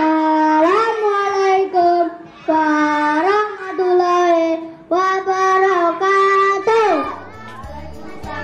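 Children singing a short song into a microphone in long held notes that step up and down in three phrases, stopping about seven seconds in.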